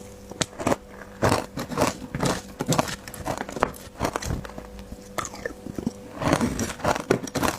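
Close-miked crunching of hard ice being bitten and chewed: irregular sharp crunches, several a second, in clusters, thickest in the last second and a half. A faint steady hum runs underneath.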